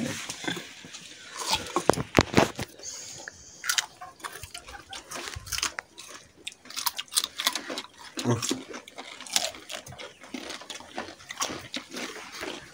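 A person biting into and chewing pieces of raw cucumber, with crisp, irregular crunches.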